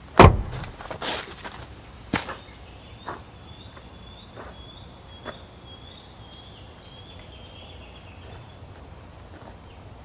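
A single heavy thump at the start, then a few lighter knocks and clacks spaced about a second apart. Through the middle a bird calls in a high, warbling series.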